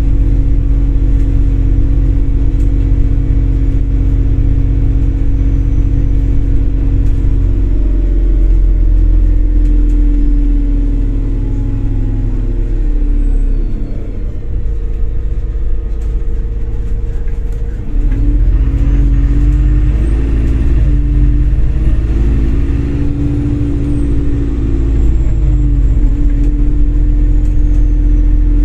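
Inside a MAZ-203 city bus under way: a steady low engine drone with a whine from the drivetrain. Around the middle the drone eases and the whine falls in pitch as the bus slows, then it rises again as the bus speeds back up.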